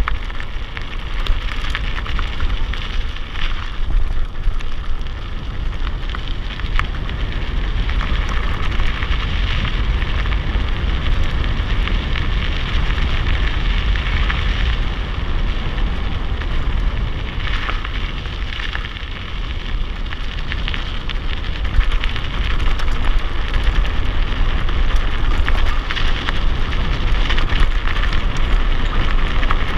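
Mountain bike riding fast down a dirt and gravel track: steady noise of the tyres rolling over the loose surface, with wind buffeting the camera microphone as a constant low rumble.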